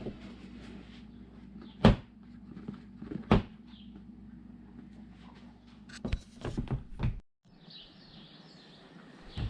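Two sharp knocks about a second and a half apart, then a cluster of thuds a little past halfway, over a low steady hum. Faint bird chirps come in near the end.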